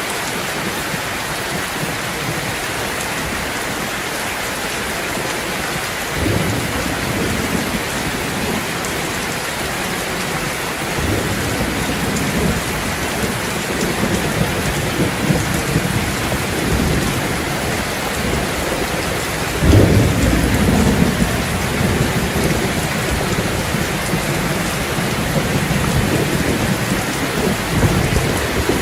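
Steady rain falling hard, with low rolling thunder that comes in about six seconds in and rumbles on. The loudest roll of thunder breaks about twenty seconds in.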